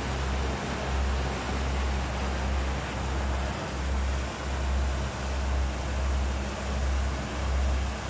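A tour boat's engine running under way, with wind rumbling on the microphone in uneven gusts.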